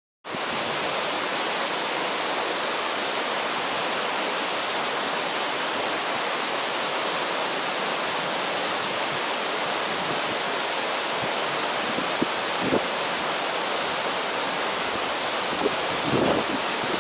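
Steady, even rush of a rocky mountain river's rapids, starting abruptly as the title card gives way, with a few brief faint knocks about twelve seconds in and near the end.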